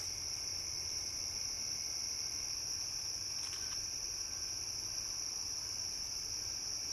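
Steady, high-pitched chorus of crickets trilling in the woods at night.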